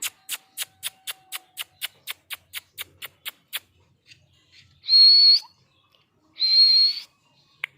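Pet parrot sounds: a quick run of about fifteen sharp clicks, roughly four a second, then two loud, high whistles, each held on one steady pitch for about half a second.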